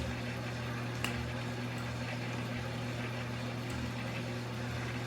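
Steady low hum with a faint hiss, and one light click about a second in.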